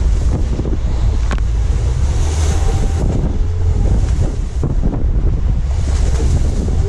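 Strong wind buffeting the microphone over the rush of waves and spray around a small open boat under way in choppy sea.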